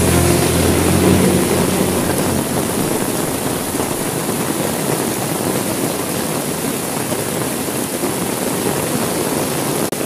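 Heavy rain falling steadily on window glass, a dense even hiss, with a low rumble fading out in the first couple of seconds. The sound cuts out for an instant near the end.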